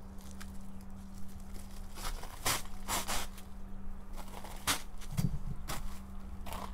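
Footsteps crunching on ground covered in a layer of hailstones: a few irregular crunches and crackles, bunched about two to three seconds in and again around five seconds.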